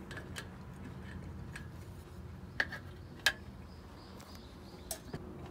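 A few sharp light clicks, the two loudest a little under a second apart near the middle and two softer ones near the end, over a steady low hum.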